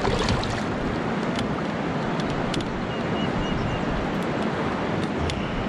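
Steady wind noise on the microphone over running river water, with a few faint clicks.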